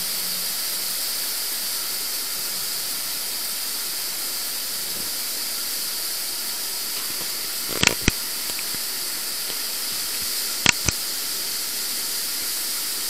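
Steady rushing hiss of the Neglinnaya river's water flowing through its underground collector tunnel. Two pairs of sharp knocks come through about eight and about eleven seconds in.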